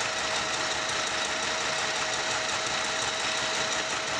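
Battery/adapter-powered mini sewing machine running steadily at low speed, its motor whirring as the automatic winder refills the bobbin with thread, with a constant hum in the sound.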